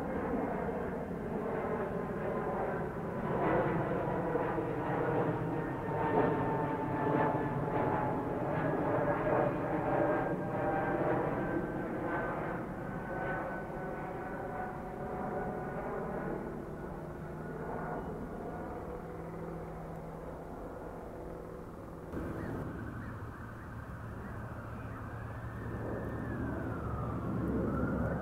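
Twin-engine jet airliner climbing overhead after takeoff: a loud engine rumble with whining tones that sink steadily in pitch as the jet passes. About two-thirds of the way through, the sound changes abruptly to a quieter, steadier jet rumble with a faint tone that rises and then falls.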